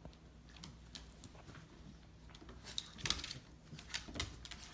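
A boxer-lab puppy and a schnauzer-cairn terrier mix play-wrestling on a dog bed over a hardwood floor: scattered light clicks and scuffles of paws and claws, with a cluster about three seconds in and another about four seconds in.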